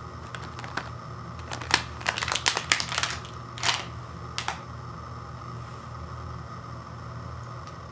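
Plastic cookie package crinkling and crackling as it is handled and set down on a wood floor: a cluster of short sharp crackles over about four seconds, then only a steady low hum.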